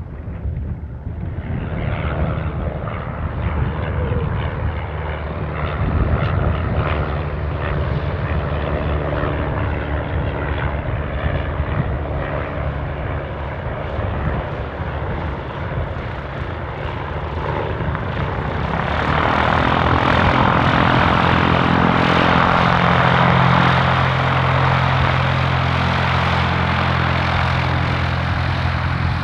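Single-engine piston propeller planes: an engine runs steadily at low power, then about two-thirds of the way in a much louder engine and propeller sound builds as a high-wing plane takes off and climbs away.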